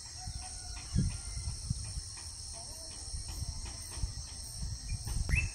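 Steady high chorus of crickets and other insects, with low rumbling on the microphone that is strongest about a second in. A few faint bird chirps, and a short rising bird call near the end.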